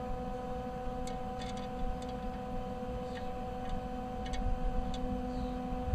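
A steady background hum with a few faint, irregularly spaced clicks and taps, like small metal parts or tools being handled.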